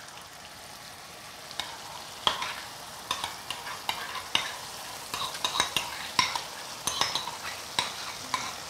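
Diced bacon and onion frying in a stainless steel pan: a steady sizzle with frequent sharp pops and clicks, which grow more frequent from about a second and a half in, as sour cream is spooned into the hot fat.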